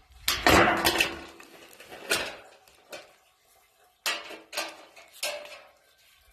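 Clattering, clicking and scraping of small hard parts being handled: a gazebo roof-panel clip and panel. There is a dense flurry of knocks in the first second, then a few separate clicks and knocks.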